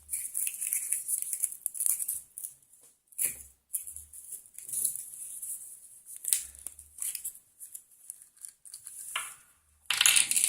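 Foil wrapper of a Kinder Surprise chocolate egg being torn open and crinkled, with scattered small clicks and rustles of handling.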